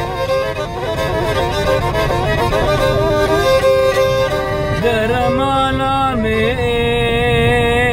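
A kamancheh, a bowed Middle Eastern spike fiddle, playing a folk melody in short stepwise notes, then longer held notes from about five seconds in that waver in pitch near the end.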